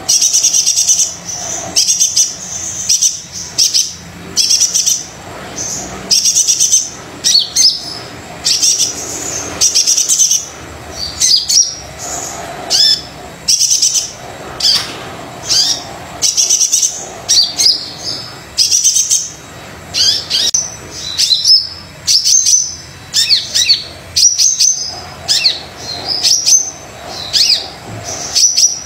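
Kolibri dada coklat (a sunbird) singing energetically in short bursts of rapid, high-pitched chirps and quick sweeping trills, repeated about once a second.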